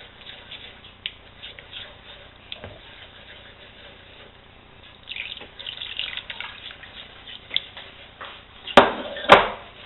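Chicken broth poured from a stainless steel saucepan into a cream sauce in a frying pan, a wooden spoon stirring and scraping through it, with a splashing trickle about halfway through. Two sharp knocks about half a second apart near the end are the loudest sounds.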